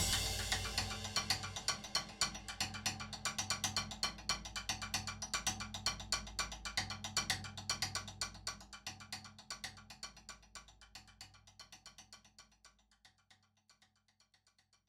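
Quick, even percussive ticking, like sticks or a hi-hat, over a low sustained hum, fading away gradually and gone after about twelve seconds.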